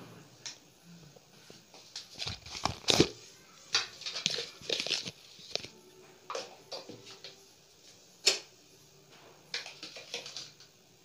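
Irregular short knocks, clicks and rustles of things being handled, densest and loudest around two to five seconds in, with one sharp click about eight seconds in.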